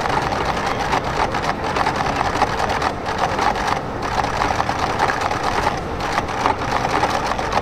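Steady, dense rumbling noise with hiss, without a clear rhythm or pitch.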